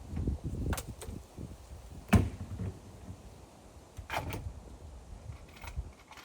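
Wooden boards being handled and set in place: low bumping and scraping with three sharp wooden knocks, the loudest about two seconds in.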